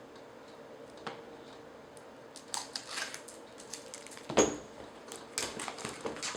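Packaging being handled by hand: scattered clicks and rustles starting a couple of seconds in, with one louder knock near the middle.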